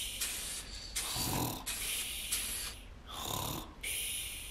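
Cartoon snoring sound effect: two low rumbling snores, each followed by a long hissing out-breath.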